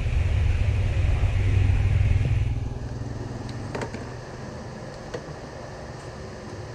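A low motor rumble that fades away about two and a half seconds in, then a few light clicks.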